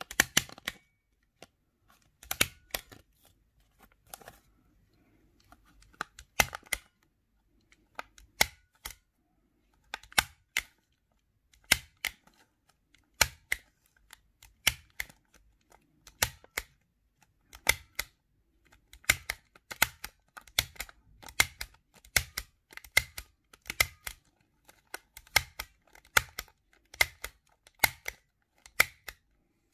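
Small handheld stapler being squeezed through paper again and again, each stroke a sharp cluster of clicks. The strokes are spaced a couple of seconds apart at first, then come faster, a little more than one a second, in the second half.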